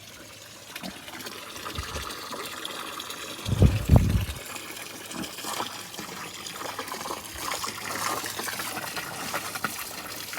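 Water running and trickling steadily into the pigs' water container as it nears full. A brief low rumble a little over three seconds in.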